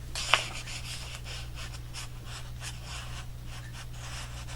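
Paper card and plastic acetate pocket rustling and scraping as the card is slid in and out of the pocket, with a sharp tap about a third of a second in, over a steady low hum.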